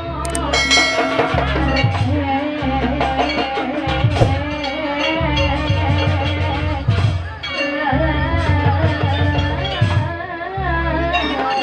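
Jaranan ensemble music: drums keep a steady beat under a wavering melody line with some singing.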